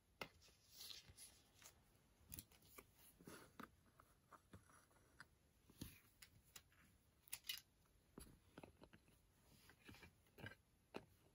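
Near silence with faint, scattered clicks, taps and brief rustles of trading cards being handled and set into clear plastic card stands on a table.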